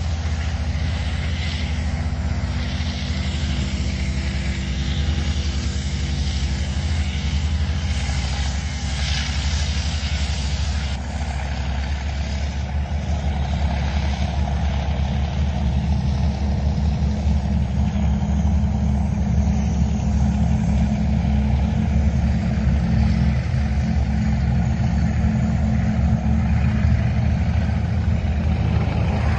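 Tank engines running as the tanks drive: a steady low drone, with a rushing hiss above it that eases about eleven seconds in.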